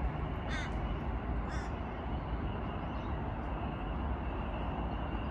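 Two short, harsh, crow-like caws about half a second and a second and a half in, over a steady rushing background noise.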